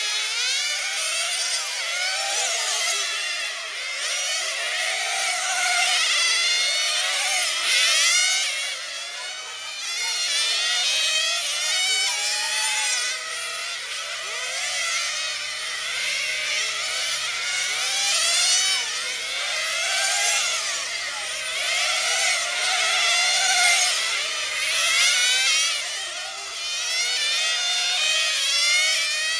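Several 1/10-scale nitro touring cars racing, their small two-stroke glow engines running at high revs in a high-pitched whine. The pitch climbs again and again as the cars accelerate out of corners and drops as they lift off, with several engines overlapping.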